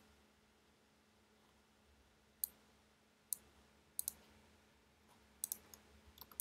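Sharp, scattered clicks of a computer mouse, about seven or eight at uneven intervals, starting a little over two seconds in and bunching up near the end, over a faint steady hum.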